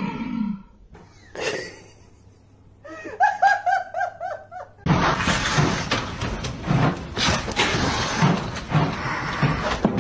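A person laughing in a quick run of short bursts. About five seconds in, a loud, rough rustling noise with scattered knocks takes over.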